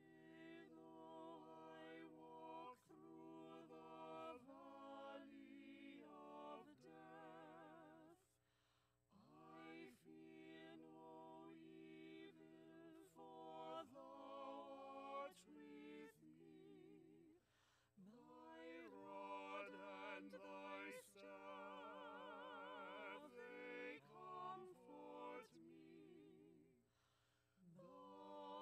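Small mixed choir of two women and two men singing a slow, unaccompanied sacred song, with vibrato on held notes and short breaths between phrases.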